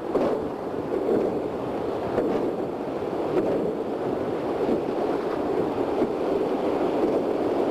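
Whitewater of a Class 3 rapid rushing and splashing around a drift boat as it runs the waves, a steady loud roar of water heard from on board.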